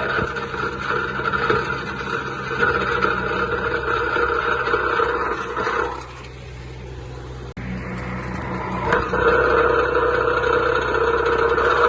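John Deere 2130 tractor's three-cylinder diesel engine running steadily. The engine note drops about six seconds in and picks back up just before nine seconds.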